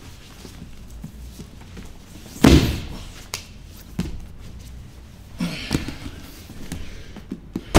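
Bodies thudding and scuffing on foam grappling mats during a sweep: one heavy thud about two and a half seconds in, then a few lighter knocks and shuffles.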